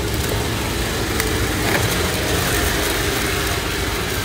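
A steady low background rumble with a few faint clicks.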